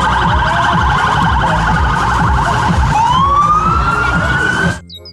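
Police car siren sounding a fast warble, then switching about three seconds in to a slow rising wail, over a low street rumble. It cuts off abruptly near the end.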